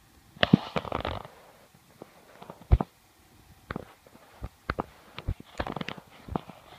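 Footsteps crunching in snow: a dense run of crunches about half a second in, a single sharp crunch a little before the halfway point, then scattered lighter crunches and clicks.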